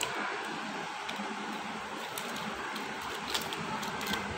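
Small plastic jewellery packets rustling and clicking faintly as they are handled and shuffled, over a steady background hiss.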